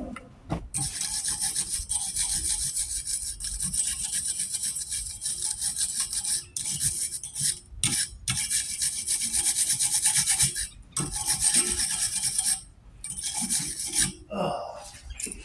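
Wire brush scrubbing over freshly welded metal to clean the welds: a steady rasping scrape in spells, broken by several short pauses.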